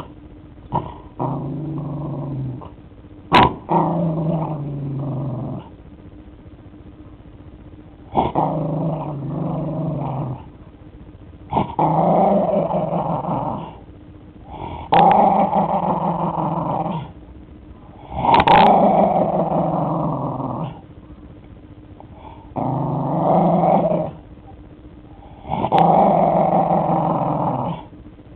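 Puggle (pug–beagle mix) growling in repeated bouts of two to three seconds with short pauses between, with a few sharp clicks inside some bouts. The dog growls because someone touches the toy basketball with a treat inside that he is chewing: guarding his toy.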